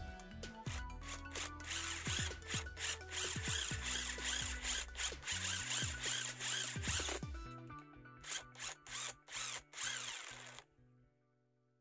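Cordless impact driver with a drill chuck adapter boring a twist bit into a block of wood, mixed with background music. The drill runs steadily for several seconds, then in a few short bursts, and stops about ten and a half seconds in.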